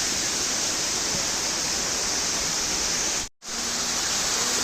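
Waterfall: a steady rushing of falling water, breaking off completely for a split second about three seconds in.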